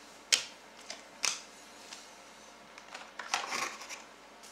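Trading cards being handled on a table: two sharp taps in the first second and a half, then a short papery rustle about three and a half seconds in.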